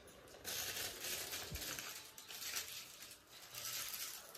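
Soft rustling and crinkling in several short spells as a gift scarf is unwrapped and unfolded by hand.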